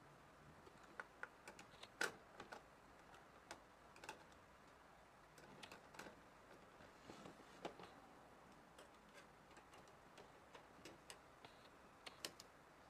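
Faint, irregular light clicks and taps scattered through a quiet room, the sharpest about two seconds in.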